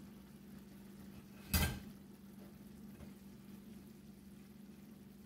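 A single short clack of kitchenware being handled about a second and a half in, over a faint steady low hum.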